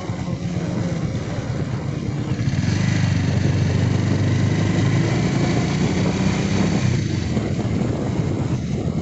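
Motorcycle engine running under way, with a rush of wind and road noise over it. It grows a little louder about a third of the way in and eases off near the end.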